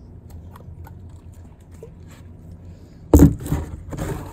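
A steady low background hum, then about three seconds in a plastic water bottle handled close to the microphone, crinkling in a sudden loud burst followed by several shorter bursts.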